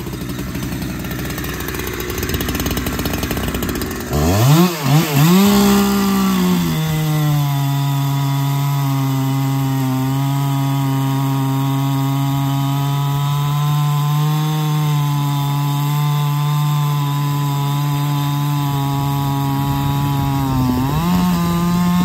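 Two-stroke chainsaw throttled up about four seconds in, then dropping to a steady lower pitch as it cuts through a red oak log. Near the end the revs climb again.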